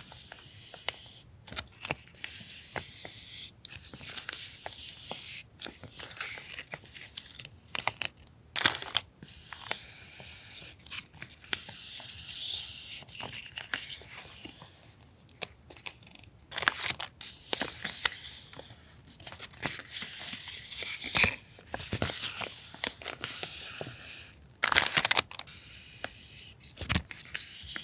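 Close-up crinkling and rustling of plastic sleeves and paper as packs of washi-tape cuts and stickers are handled and opened, with frequent sharp taps and clicks.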